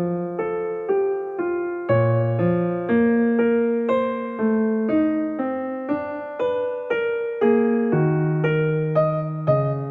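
Background music: a gentle piano melody, one note after another, each struck and fading.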